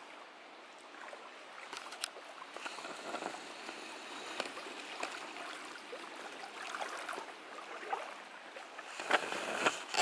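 Small waves lapping and splashing against stones and the bank at a lake's edge: a continuous uneven sloshing made up of many small splashes, louder for a moment near the end.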